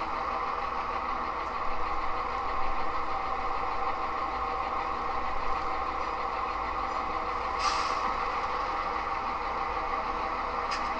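Sound-equipped HO-scale model diesel locomotive playing a steady diesel engine idle through its small onboard speaker. A short hiss about eight seconds in is like an air-brake release.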